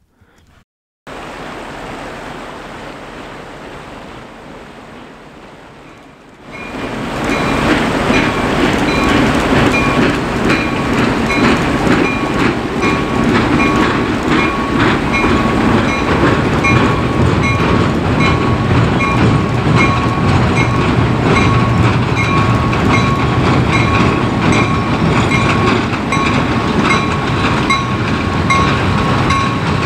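A diesel-hauled passenger train going by. It is quieter at first and fading, then about six seconds in it comes up loud and stays, with the wheels clicking over the rail joints and a steady high tone running through it.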